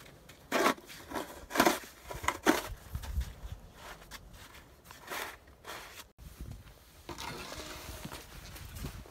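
Snow shovel scraping across a concrete sidewalk as snow is pushed off it: four loud scrapes in the first six seconds, then only fainter, steady noise.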